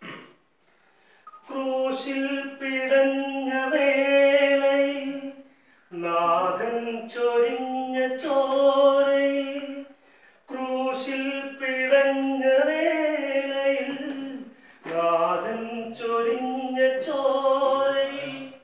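A man singing solo and unaccompanied, in four long phrases with held notes and short breaks for breath between them.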